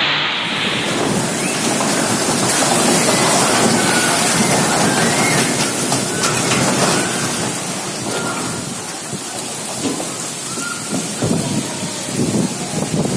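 Heavy rain and wind of a whirlwind storm, a dense steady rushing noise, with irregular low rumbles in the last few seconds.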